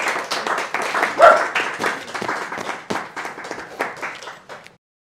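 Applause: dense irregular hand clapping that gradually thins out and then cuts off abruptly near the end.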